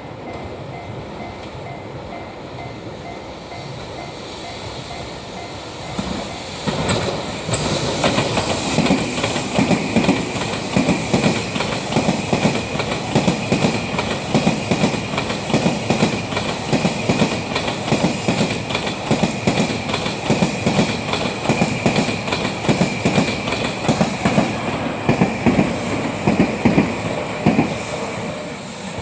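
Level-crossing bell ringing, then the M250 series Super Rail Cargo electric freight train passes over the crossing from about six seconds in. Its wheels give a fast, continuous clickety-clack over the rail joints until it eases off near the end.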